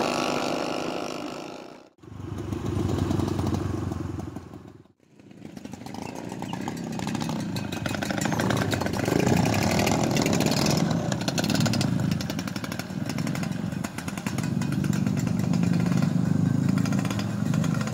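Several Vespa scooter engines running as a group rides along, a dense buzzing engine noise. The sound drops out briefly twice, about two and five seconds in.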